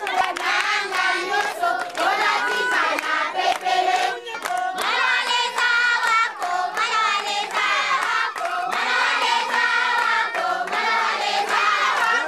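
A group of children and women singing together, with hand clapping.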